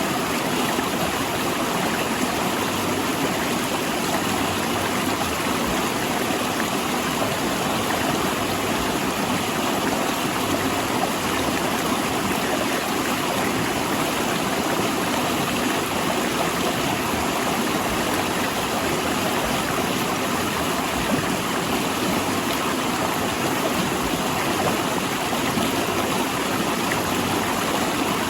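River water rushing steadily over and between large rocks, a constant, even rush.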